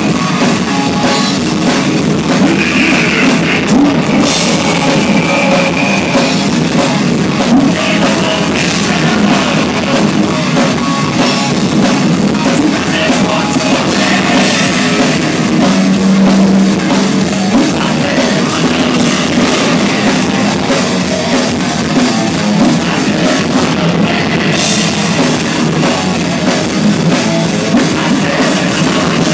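Thrash metal band playing live at full volume: distorted electric guitars over a driving drum kit with cymbals.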